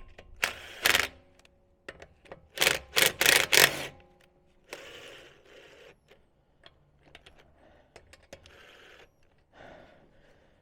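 Short bursts of metallic rattling and clatter from tools working a wheel's lug nuts, with a loud cluster of them between about two and a half and four seconds in, followed by fainter scrapes and handling sounds.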